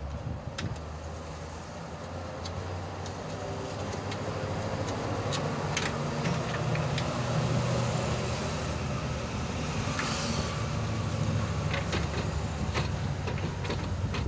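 A motor vehicle engine running, growing louder over the first several seconds and then holding steady, with scattered light clicks and taps.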